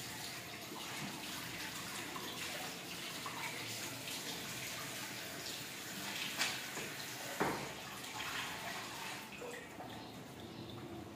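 Tap water running into a ceramic pedestal washbasin while hands are washed under it, with two short knocks about six and seven seconds in.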